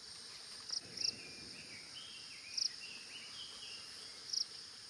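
Forest insect chorus: a steady high-pitched buzz of crickets or cicadas, with a few short louder chirps standing out. Faint warbling bird calls sound through the middle.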